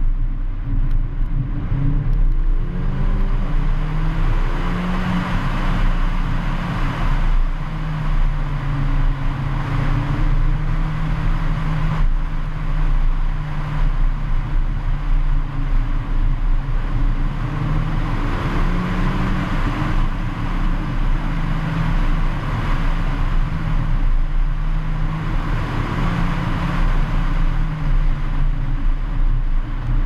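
Heavy wind noise on the microphone and rumble from a rough road surface as a Mercedes-AMG A45 is driven fast. The car's turbocharged four-cylinder engine is heard only faintly underneath, its pitch rising and falling several times.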